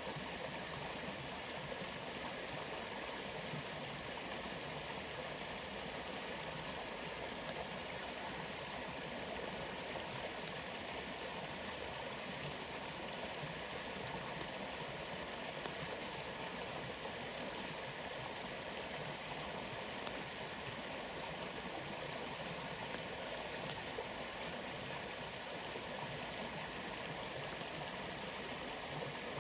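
Rainforest waterfall: a steady, even rush of falling water that does not change.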